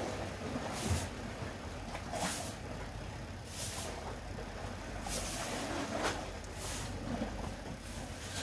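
Sea water splashing in short regular surges, about one every second and a half, over a steady low rumble.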